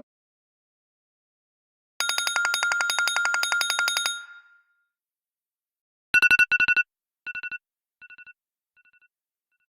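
Two iPad ringtones played one after the other. First a rapid electronic trill of about two seconds that fades out. Then a short burst of quick two-pitch beeps that repeats about four times like an echo, each repeat softer and shorter.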